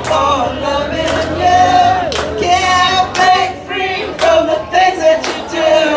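Live rock band playing with sung vocals over a steady drum beat.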